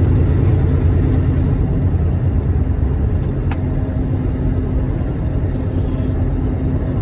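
Semi-truck's engine and tyres droning steadily inside the cab while driving on a snowy road, a low, even rumble.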